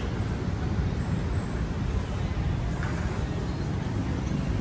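Steady low rumble of city street noise, with traffic in it.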